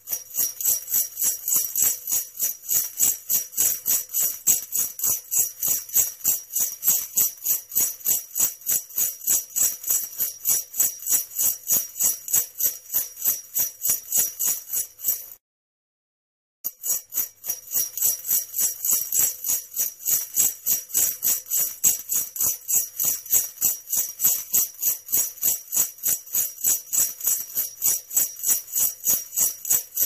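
Sleigh bells jingling in a steady shaking rhythm, about four shakes a second; they stop for about a second midway and then start again.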